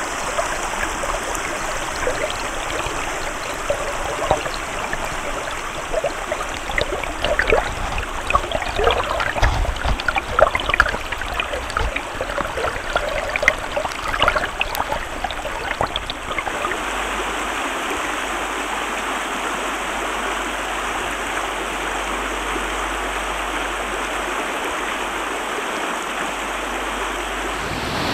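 A clear, shallow stream rushing over a rocky bed, full of bubbling pops and gurgles for the first half, settling into a smoother, steady rush about 16 seconds in.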